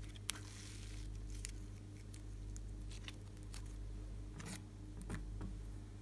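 Soft yellow slime being squeezed and pulled by hand, then pressed down into a dish: small sticky clicks and crackles, with a sharp click just after the start and a few louder ones near the end, over a steady low hum.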